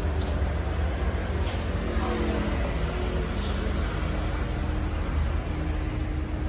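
Street traffic: a steady low rumble of road vehicles running.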